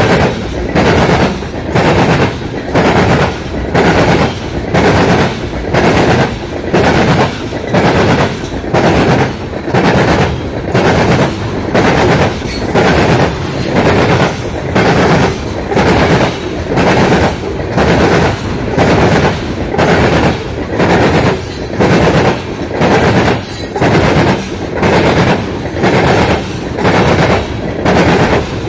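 Loaded coal train's hopper cars rolling past, with a loud, rhythmic wheel clatter that swells and dips about once a second.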